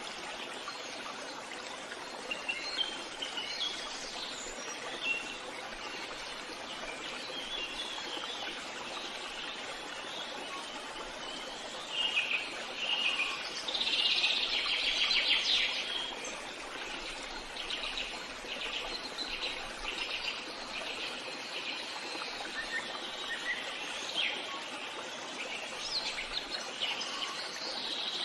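Forest ambience: several wild birds singing and calling over a steady background hiss. About halfway through, one bird sings a loud, fast trill, followed by a run of repeated notes.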